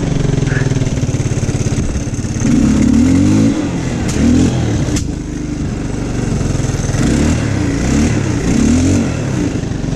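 Linhai 300 2x4 ATV's single-cylinder engine running under load, revving up and dropping back several times, with two sharp knocks about four and five seconds in.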